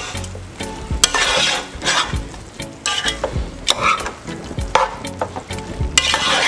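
Metal utensil stirring and scraping chicken pieces around a large pot in repeated, irregular strokes, with the food sizzling as it fries.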